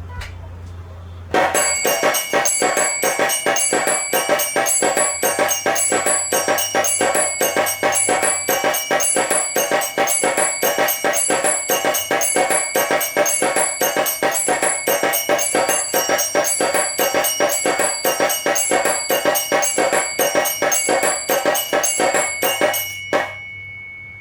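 Electric mini aarti machine playing: its small nagada drum and bell beat in a fast, even rhythm of about four to five strokes a second, with bells ringing over it. It starts about a second in and stops a second before the end, leaving one bell tone ringing on briefly.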